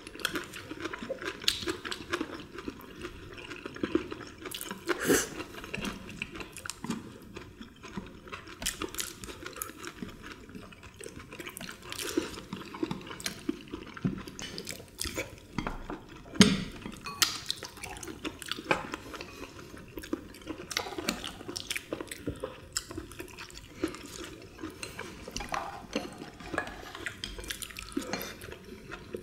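Chopsticks and spoons clicking and scraping on ceramic bowls and plates, with wet eating and slurping sounds from several people at a meal. One sharper knock about halfway through.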